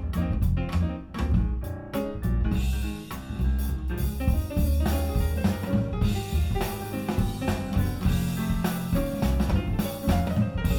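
Jazz-style music played back through Silent Pound Challenger loudspeakers: plucked bass and guitar notes, with drums and cymbals joining about two and a half seconds in.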